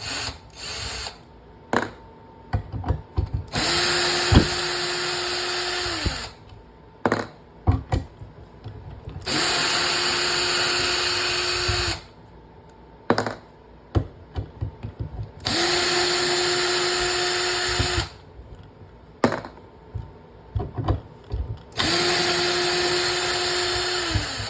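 Hart 20V cordless hammer drill backing screws out in reverse: four runs of about two and a half seconds each. Each time the motor whine spins up, holds steady and winds down. Between runs there are short clicks and knocks of the drill and screws being handled.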